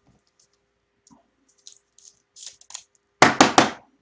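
Trading cards and a foil pack wrapper being handled: a few faint crackles, then a loud quick run of three or four sharp crackles near the end.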